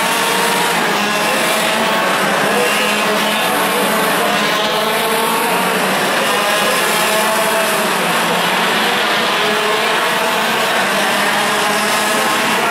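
Several 125cc two-stroke TAG kart engines running at racing speed as the karts pass, their overlapping high-pitched notes shifting up and down in pitch as the drivers accelerate and lift.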